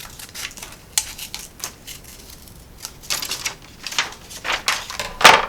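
Scissors snipping through paper in a string of short, crisp cuts at uneven spacing, with paper rustling, and a louder sharp click about five seconds in.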